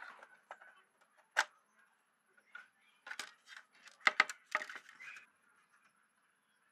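Hard plastic clicks and clatter as an old plastic PC speaker casing is taken apart with a screwdriver: a single sharp click about a second in, then a run of knocks and rattles between about three and five seconds in.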